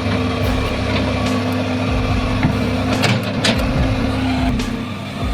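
A heavy vehicle engine running steadily, with a few sharp knocks about three seconds in.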